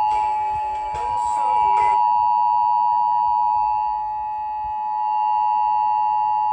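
Emergency Alert System attention signal: a steady, loud alert tone made of closely spaced pure tones near 1 kHz, held without a break. It is the alert that comes before a spoken severe thunderstorm warning.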